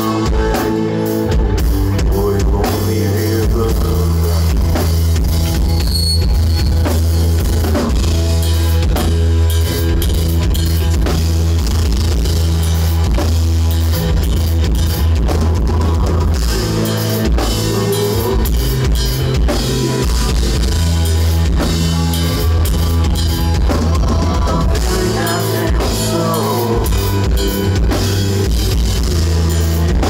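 Rock band playing live and loud: drum kit, electric bass and electric guitar.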